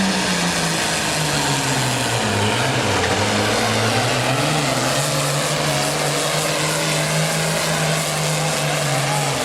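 Super farm class pulling tractor's turbocharged diesel engine running hard under a pull. Its pitch drops about two seconds in, then climbs back and holds steady, over a loud rushing noise.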